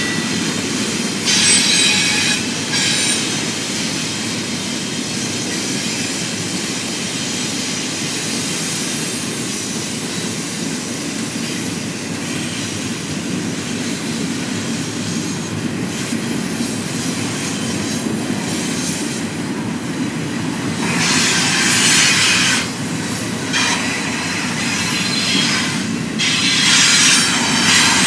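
Double-stack intermodal freight train's cars rolling past with a steady rumble, broken by bursts of high-pitched steel wheel squeal at the start and twice near the end.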